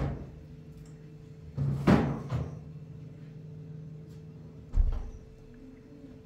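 Kitchen handling knocks and thuds: a knock at the start, a louder clatter about two seconds in, and a dull thud about five seconds in, like a door or cupboard shutting. A low steady hum runs under the middle and stops with the thud.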